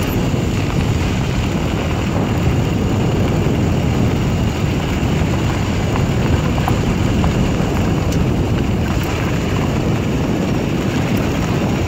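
Steady low rumble of wind and road noise from riding in a moving vehicle, loud and unbroken throughout.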